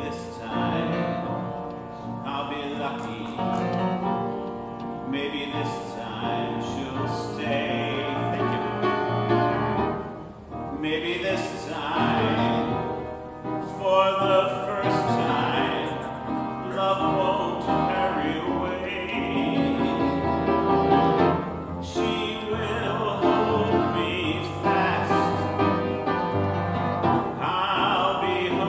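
A man's full baritone-tenor voice singing a show tune to piano accompaniment, with held notes that waver in vibrato.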